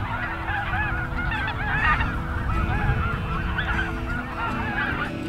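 Large flock of wild geese calling: a dense chorus of many overlapping honks and yelps that goes on without a break.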